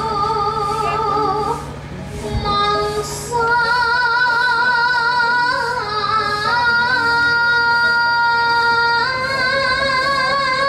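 A woman's solo voice, a Javanese sinden singing into a microphone, holds long notes with a wavering vibrato. About two seconds in she breaks into a few short notes, then settles on higher held notes that step up and down in pitch.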